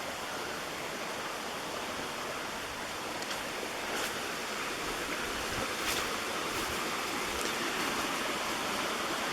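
Mountain stream rushing over rocks, a steady even rush of water, with a few faint clicks now and then.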